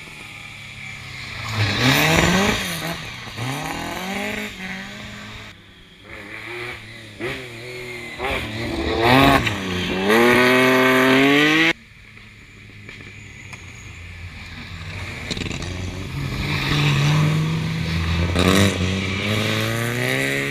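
Rally car engines at full throttle, the pitch climbing through the gears again and again. Halfway through, the sound cuts off suddenly. Then another car approaches, growing steadily louder until a sudden cut near the end.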